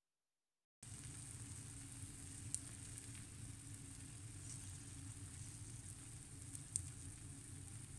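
Egg frying in oil in a non-stick pan: a faint, steady sizzle that begins about a second in, with two light clicks along the way.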